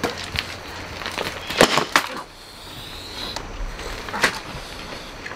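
Scattered sharp knocks and slaps, irregularly spaced. The loudest come in a quick cluster about one and a half to two seconds in, with a last single knock near the end.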